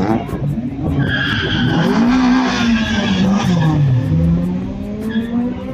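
Car engines revving, their pitch rising and falling and crossing, with tyres squealing for a couple of seconds about a second in.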